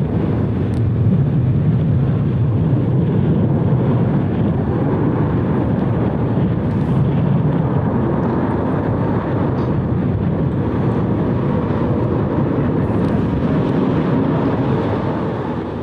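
Jet airliner engines running across the airfield, a steady rumble that eases slightly near the end.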